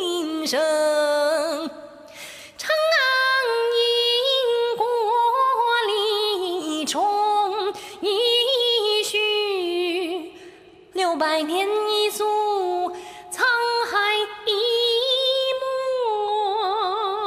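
A high, clear male singing voice carrying a slow melody with long held notes and vibrato, in phrases broken by short pauses about two seconds and ten seconds in, with only light backing.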